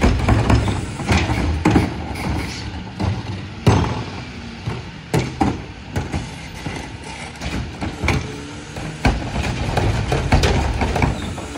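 McNeilus rear-loader garbage truck's hydraulic cart tipper dumping wheeled trash carts into the hopper: a string of clunks and bangs as the carts are lifted, shaken out and set back down, twice, over the truck's diesel engine running, which gets louder when the tipper lifts.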